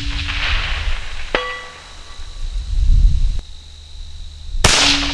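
The echo of a 6.5 Creedmoor rifle shot from a Howa 1500 HCR dies away. About a second and a half in comes the delayed ring of the steel plate being hit at 500 yards. Near the end the rifle fires again.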